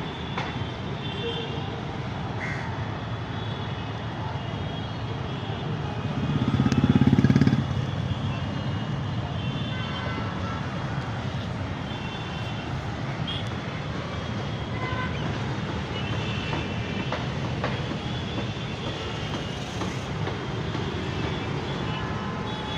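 Busy road traffic with short vehicle horn toots here and there, and a heavy vehicle passing close and loud about six to seven seconds in.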